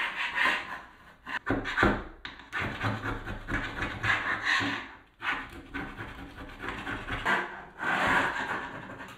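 Hand grout scraper raking out the joints between wall tiles: a run of rasping back-and-forth strokes with short pauses. It is clearing leftover mortar and tile-leveler tabs from the joints so the grout will adhere.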